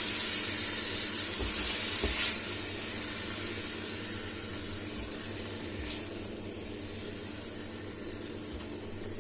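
Stir-fry of green beans, mushrooms and smoked beef sizzling in the pan with the heat just switched off, the hiss slowly dying away. A couple of utensil clinks, about two and six seconds in.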